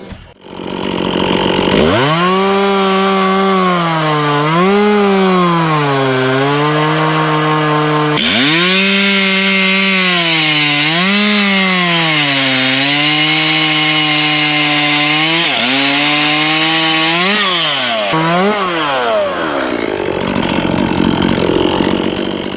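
Gasoline chainsaw bucking logs at full throttle, its engine pitch dropping and recovering again and again as the chain bites into the wood. The sound breaks off abruptly twice and picks up again.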